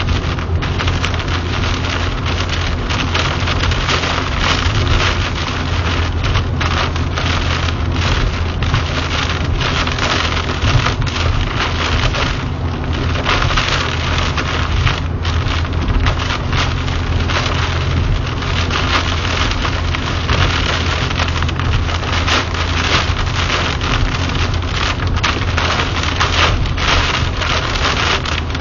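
Heavy rain pelting the car's roof and windshield in a dense, steady patter, heard from inside the cabin. Under it runs the low, steady drone of the car and its tyres on the flooded road.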